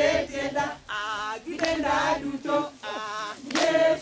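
A group of mostly female voices singing an unaccompanied action song together, in short chanted phrases of about half a second each.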